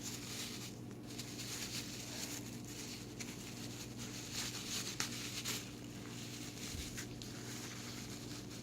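Soft, irregular rustling of packing paper and plant material being handled, with one sharp click about five seconds in, over a steady low hum.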